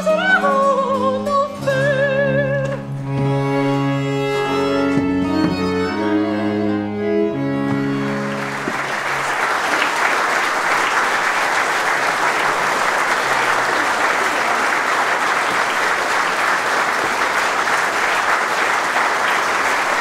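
A woman singing opera with wide vibrato over held bowed strings and a low cello line, in a baroque opera performance; the music stops about eight seconds in and the audience breaks into steady applause.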